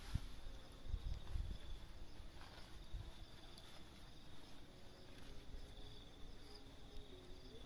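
Insects chirring steadily in the background, a faint high pulsing drone. In the first second or so come a few low thumps and rustles of clothing being handled.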